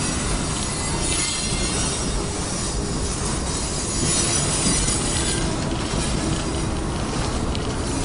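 Freight cars rolling past at close range: a steady rumble of steel wheels on the rails, with high-pitched wheel squeal coming and going as the cars take the curve.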